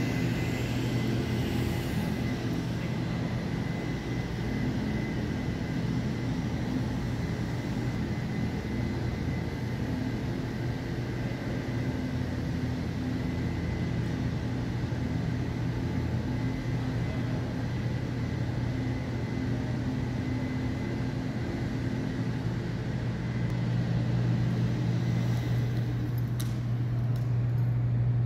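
Steady low mechanical hum of a large hall's air-conditioning system, growing a little louder near the end.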